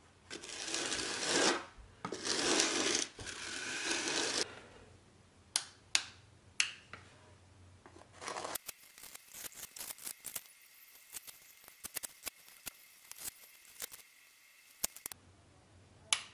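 A spatula scraping and smoothing wet filler over the plaster around a switch box in two long strokes, followed by a few sharp taps and then a run of light clicks.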